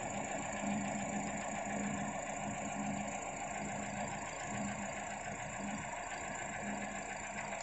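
Toyota Altis four-cylinder engine idling with the harness pulled off one ignition coil pack, so that cylinder drops out and the idle changes, running unevenly with an irregular pulse. It is a manual cylinder-by-cylinder check for a misfire that the scanner did not log.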